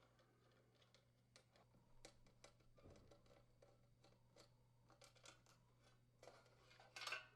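Near silence with faint scattered clicks and small handling noises, and a brief soft rustle near the end.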